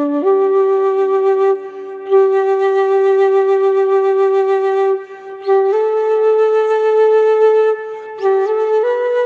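Solo flute playing a slow, calm melody of long held notes with an airy, breathy tone. The notes step slowly upward, with brief breaks for breath every few seconds.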